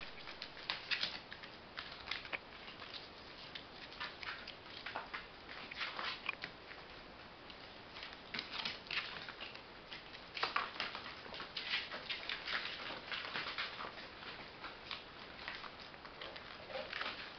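Five-week-old chocolate Labrador puppies scampering about, their paws and claws pattering and scratching on the floor in quick, irregular clicks.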